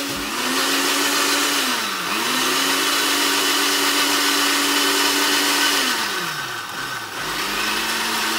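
A Brabantia countertop blender's motor runs, blending soaked sea moss and water into gel. It is worked in pulses: the motor starts up at the beginning, slows and picks up again about two seconds in, then winds down around six seconds in and starts again about a second later.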